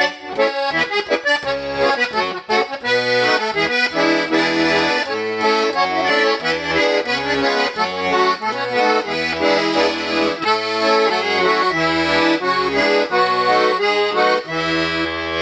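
Vyatka garmon, a Russian button accordion, played continuously: a melody on the right-hand side over rhythmic bass and chord notes, with the changes coming every fraction of a second. The instrument has just been repaired and tuned, and its reeds sound in a clean tuning.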